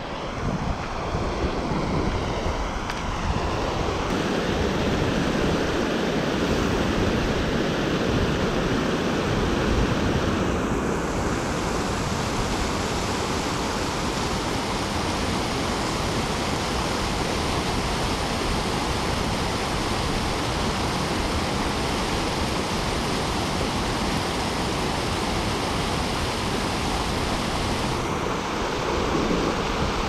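Water pouring over a low concrete weir: a steady rush of whitewater, with wind buffeting the microphone.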